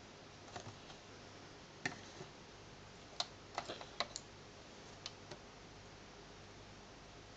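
Magnetic pen tapping and clicking against the plastic screen of a Tomy Megasketcher drawing board: scattered sharp little taps, most of them bunched together in the middle, over faint room hiss.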